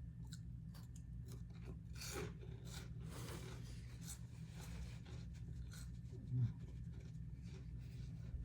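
Close-miked crunchy chewing of Cheetos: a run of sharp crackles and clicks over a steady low hum, with a short hummed "mm" about six seconds in.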